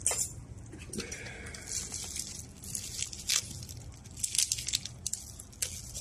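Crinkling and tearing of a small blade wrapper handled in thin plastic gloves, with several sharp clicks and rustles scattered through.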